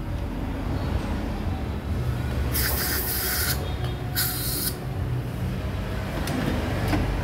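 Aerosol brake cleaner sprayed into the engine block's head-bolt holes in two short hissing bursts, about a second apart.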